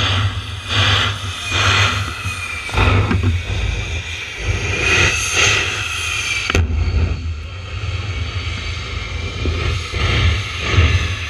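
Propeller aircraft of an aerobatic team flying overhead: the radial engines of T-6 Texans run with a steady low rumble that swells and fades as the planes pass. One sharp crack comes about six and a half seconds in.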